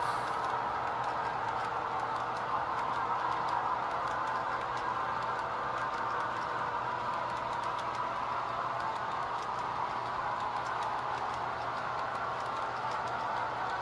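Model freight cars rolling steadily along the track: an even rolling whir of small metal wheels on rail, with faint irregular clicks as the wheels pass over rail joints.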